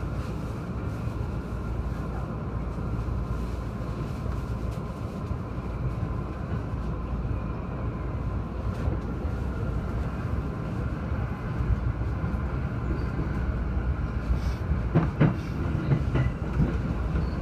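E231 series electric train running through station pointwork, heard from the driver's cab: a steady low rumble with a thin steady tone. About fifteen seconds in come a few sharp clacks as the wheels pass over rail joints and points.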